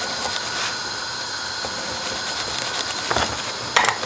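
Steady hiss with a faint whine running underneath. A small knife knocks twice on a wooden chopping board near the end while the centre of a slice of toast bread is cut out.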